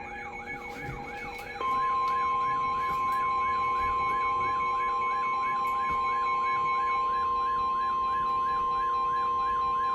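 Weather-radio warning alarm: a steady, loud, single high tone starts about one and a half seconds in, announcing the tornado warning that follows. Under it, an electronic alert tone warbles up and down about three times a second.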